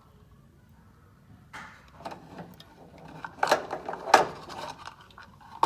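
Irregular knocks and clatters of cookware and containers being handled in a kitchen, starting after a quiet second and a half and loudest about three and a half and four seconds in.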